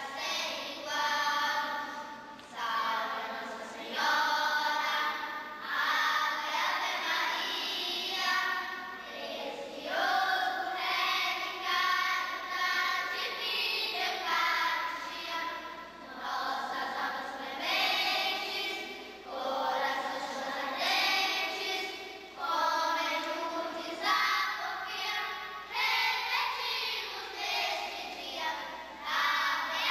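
A group of young girls singing together as a children's choir, in short sung phrases with brief breaks between them.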